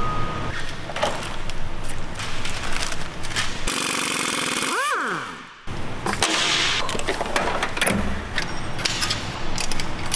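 Workshop tool and metal clatter: bolts and tools clicking and clanking on a steel workbench, with a hissing burst of about a second, about four seconds in. Just before the middle there is a short swooping sweep, and the sound drops out for a moment.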